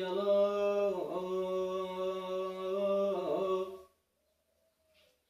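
A man singing an unaccompanied Iraqi mawwal, holding one long, drawn-out note with small ornamental dips on the word 'al-qalb' (the heart); the voice breaks off about four seconds in.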